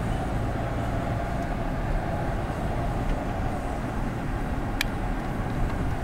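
Car driving at low speed, heard from inside the cabin: a steady road and engine rumble with a faint wavering hum over it. A single short tick about five seconds in.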